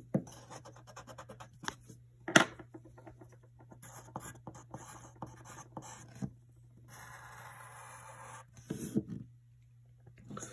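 Pencil writing on paper: a run of short scratchy strokes with a few sharper taps, then one longer steady stroke about seven seconds in as the line is underlined.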